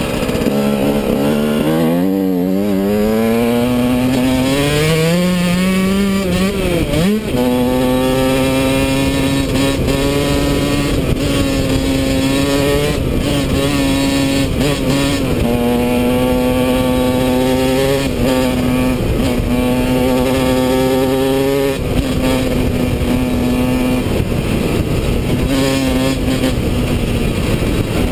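Yamaha YZ125 dirt bike's two-stroke single-cylinder engine running under a rider, heard close up from a helmet-mounted camera. The revs climb over the first several seconds and dip sharply about seven seconds in. After that the engine runs at a fairly steady pitch with small rises and falls.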